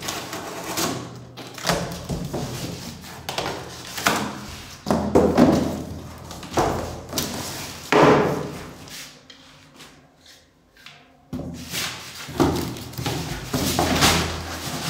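Cardboard packaging being handled and torn open: flaps scraping and rustling, with several irregular thumps as the boxes are pulled and set down, and a quieter stretch about two-thirds through.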